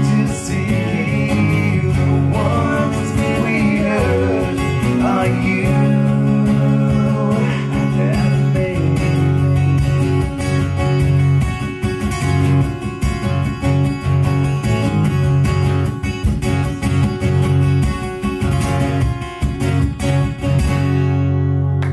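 Two acoustic guitars playing together, strummed and picked, in an unplugged rock performance.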